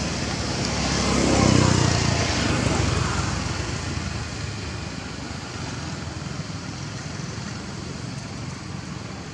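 A motor engine running, swelling to its loudest about a second and a half in and then fading to a steady low hum.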